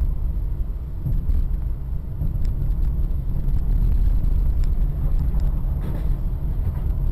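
Steady low rumble of a car's engine and tyres while driving, heard from inside the cabin through a dashboard camera's microphone, with a few faint clicks.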